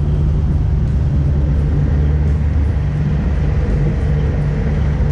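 Fishing boat's engine running steadily under way: a constant low drone.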